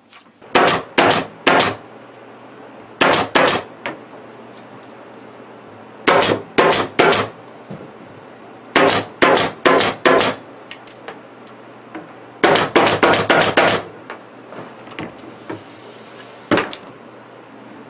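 Pneumatic staple gun firing staples through upholstery fabric into the wooden wall frame. The sharp shots come in short bursts of three or four with pauses between, then a quicker run of about eight.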